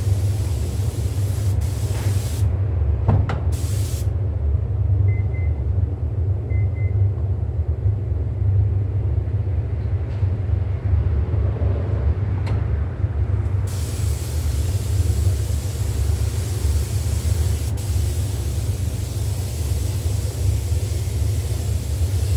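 Steady low rumble of a paint booth's ventilation running, with a fainter high hiss over it that drops out a couple of seconds in and comes back about ten seconds later.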